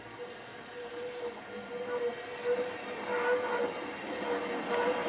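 Narrow-gauge steam train drawing slowly into a station, its running gear and carriages rattling and getting louder as it approaches, over a steady, slightly wavering whine.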